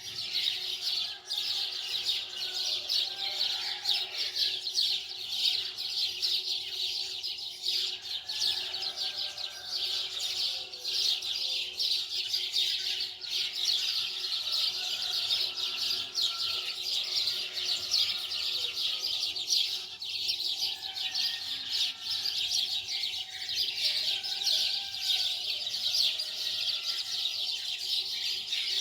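Dense, continuous chirping of many birds, a fast unbroken chatter that keeps up without a pause.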